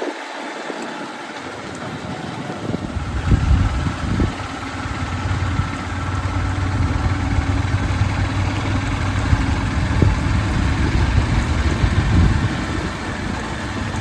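Vehicle engine running with a low, steady rumble that builds up about two to three seconds in and then holds.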